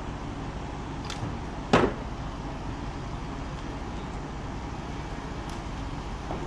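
Steady engine rumble under a vehicle extrication, with one sharp, loud crack of car metal giving way under a hydraulic rescue tool a little under two seconds in.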